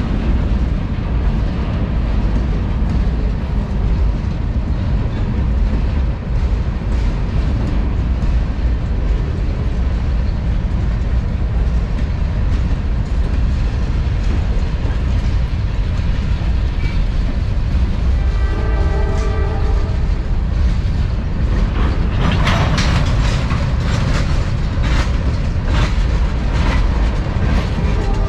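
Norfolk Southern manifest freight train's cars rolling past with a steady heavy rumble. A brief pitched whine comes about two-thirds of the way through, and a run of sharp wheel clacks and clanks starts near the end.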